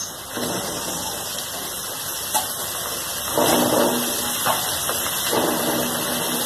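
Raw chicken pieces sizzling as they go into hot mustard oil and golden-fried onions in a kadhai. The frying hiss starts about half a second in and surges louder twice, about three and a half and five seconds in, as more pieces are added.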